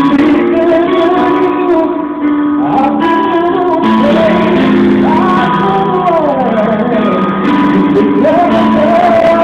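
A man singing a ballad live into a microphone, his voice gliding through long held notes over instrumental accompaniment.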